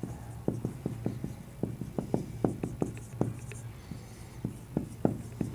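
Marker writing on a whiteboard: a string of short, irregular taps and strokes, about three or four a second, over a low steady hum.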